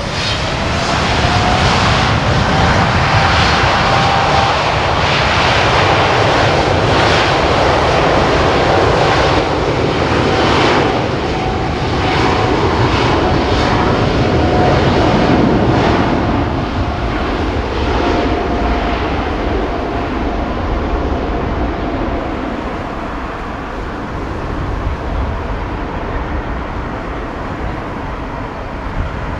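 Boeing 747-8's four GEnx-2B turbofans at take-off thrust during the take-off roll and rotation: a steady jet roar with a whining tone. The whine rises about half a second in and then slowly falls, and the roar is loudest through the first half before easing off.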